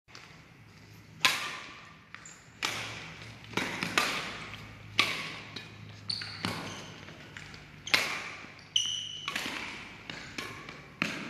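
Badminton rackets striking a shuttlecock back and forth in a rally, a sharp crack about every second or so that echoes through a large sports hall. Short high squeaks of court shoes on the floor come between some of the strikes.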